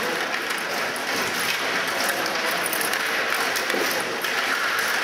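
Stiga table hockey in play: the players' rods and figures clicking and rattling and the puck knocking, over a steady hiss of crowd noise.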